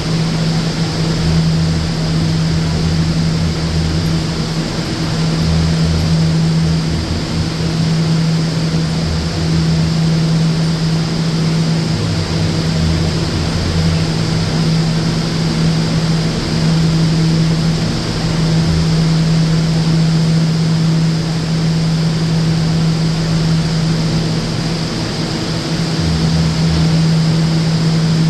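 HVAC unit of an R179 New York City Subway car running: a steady hum over a wide airflow hiss, with a deeper rumble that swells and fades every few seconds.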